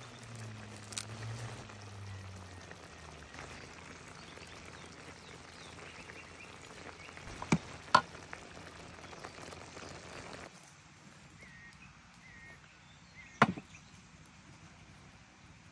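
A metal cooking pot set down on a wooden board with a single knock near the end, after two sharp clicks about halfway through, over steady outdoor background noise; a bird chirps a few times shortly before the knock.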